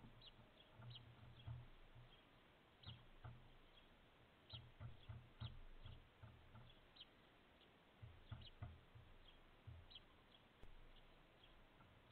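Faint, short chirps of house sparrows, scattered irregularly and sometimes several a second, over irregular low thumps.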